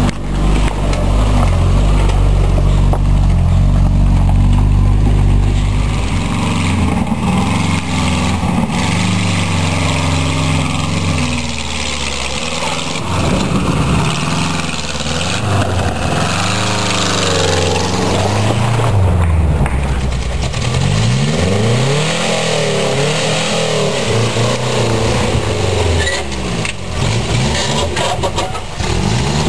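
Lifted Subaru wagon's engine revving up and down again and again as it crawls up a rock ledge, the pitch rising and falling with each blip of throttle. A heavy low rumble on the microphone dominates the first several seconds.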